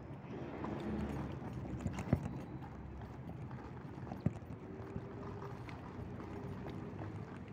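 Ride noise of an electric scooter rolling over a rough concrete street: a low rumble with irregular rattles and knocks, and two sharper knocks about two and four seconds in.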